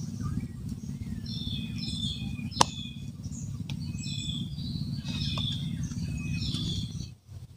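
A bird calls over and over in short, high, chirpy phrases above a steady low rumble. A single sharp click comes about two and a half seconds in, and the rumble stops abruptly near the end.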